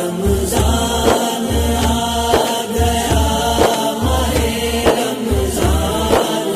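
Interlude of an Urdu Ramzan nasheed: a low beat pulsing in regular groups under layered chanting voices singing no words.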